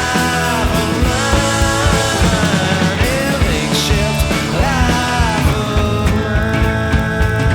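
Rock music with a steady drum beat and a voice or lead guitar carrying a bending melody.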